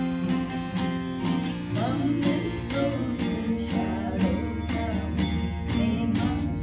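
Mountain dulcimer and acoustic guitar playing a folk tune together, with evenly picked and strummed notes about three a second.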